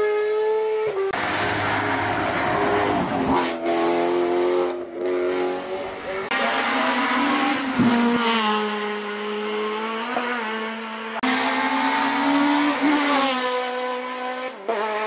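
Hillclimb rally cars passing one after another at full throttle, their engines revving hard and the pitch climbing and dropping with each gear change. The sound changes abruptly several times as one car gives way to the next.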